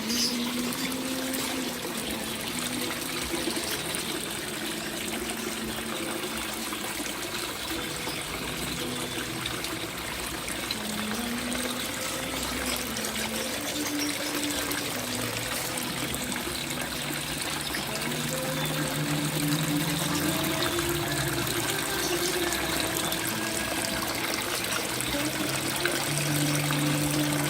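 Running water trickling and splashing steadily, a little louder in the second half.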